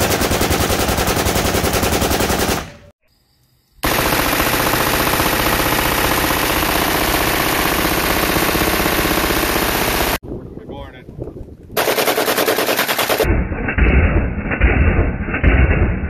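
Full-automatic rifle fire in several long, rapid bursts. The longest, about six seconds, comes from an AR-pattern rifle with a drum magazine. Near the end the sound changes to separate shots, about two a second.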